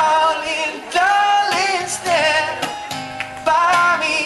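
Music: a song with a singing voice, its held notes wavering with vibrato, over an instrumental backing.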